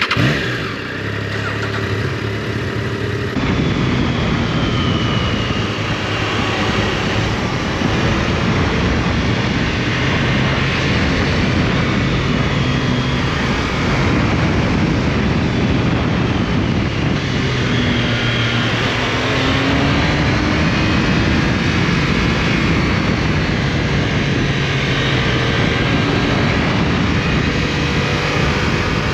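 Triumph Tiger Sport 660's three-cylinder engine running under load, its pitch rising and falling with the throttle, under a heavy rush of wind noise on the helmet-mounted camera.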